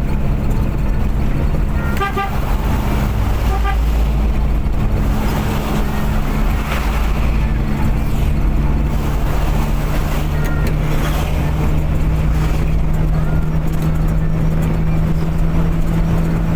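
Motor vehicle running steadily at speed, with a constant low engine drone and road noise. A series of short horn toots comes about two seconds in, and a few brief beeps later on.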